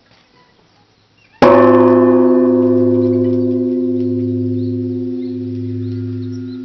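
Katsuō-ji temple's large bronze bonshō bell struck once about a second and a half in, then ringing on in a long, slowly fading hum that pulses in slow waves.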